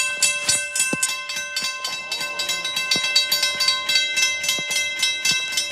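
Railroad crossing's mechanical warning bell ringing in rapid, even strokes, signalling an approaching train.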